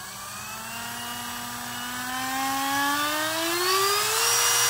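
Dremel 8220 12V cordless rotary tool running without load, its motor whine rising smoothly in pitch as the variable-speed slider is pushed up. It levels off at a steady top speed about four seconds in, believed to be 30,000 RPM.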